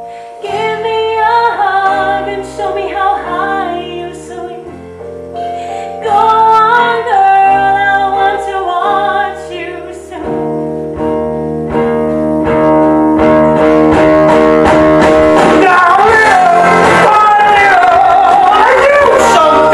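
Live rock-musical band with guitar and a singer, recorded from the audience in a theatre. The music swells and stays loud from about twelve seconds in.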